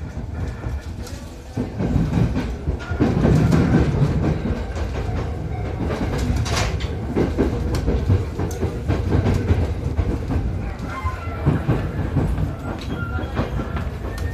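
Inside a JR 209 series electric commuter train as it pulls away from a station. The running and motor noise rises sharply about two seconds in and stays loud, with clicks and clatter from the wheels over the rails.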